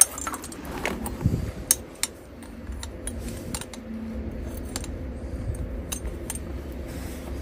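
Light metallic clicks and clinks of steel bicycle parts being handled: a sprocket on a rod and a small welded-nail frame knocking together. The clicks are scattered, most of them in the first three seconds, over a steady low rumble.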